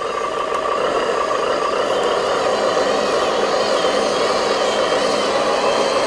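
Steady whirring of a radio-controlled model truck's small electric motor and gears running, with a faint steady whine over it.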